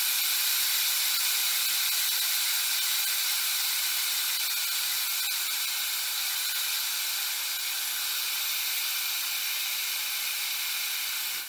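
Steam locomotive letting off steam: a steady, loud, high hiss of escaping steam with no rhythm.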